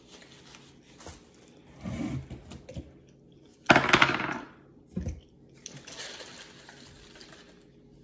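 Handling and clatter of plastic food containers and lids on a table, with a loud crinkly burst about four seconds in and a shorter knock about a second later.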